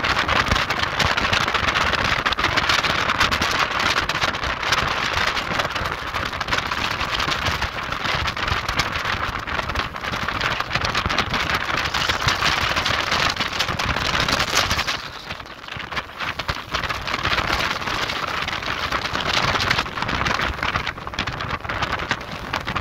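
Storm-force wind blowing hard across the microphone in strong gusts, easing briefly about fifteen seconds in before picking up again.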